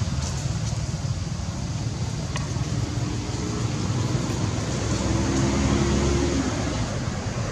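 Steady outdoor rumble and hiss, with a faint humming tone that swells about five seconds in.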